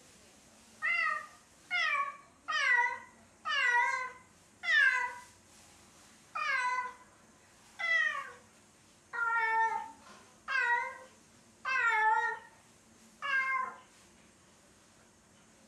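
Domestic cat meowing over and over, about eleven mournful calls, each falling in pitch, roughly one a second. It is crying for its absent owners, who suspect separation anxiety.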